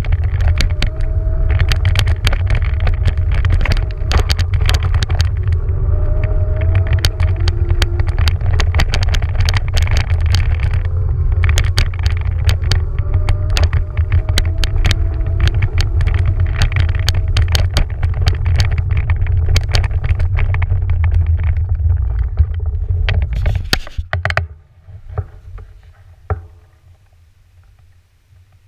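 Beaster BS11 electric scooter riding over beach sand, heard from a camera mounted on it: a heavy low rumble with many knocks and rattles from the bumps, over a faint wavering whine. The ride stops about 24 seconds in, leaving only faint scattered sounds.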